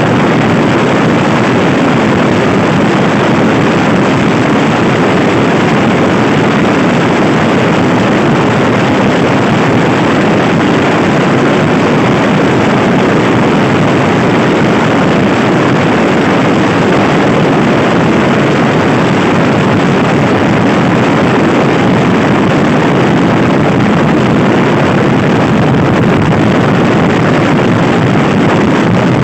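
Loud, steady wind rush on the microphone of a Honda Scoopy-i scooter being ridden at speed, with the scooter running underneath.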